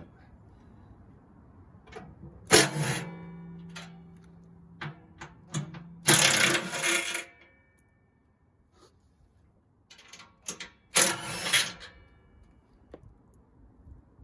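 Impact wrench run in three short bursts, about 2.5, 6 and 11 seconds in, backing out the bolts that hold the leaf blower's covers, with small metallic clinks of tools and parts between the bursts.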